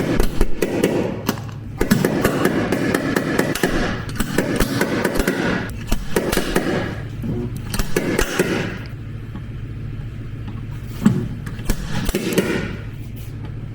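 Repeated hammer blows on the sheet metal of a pickup truck cab, coming in irregular clusters of sharp knocks with short pauses between them, as the dented panel is worked back into shape.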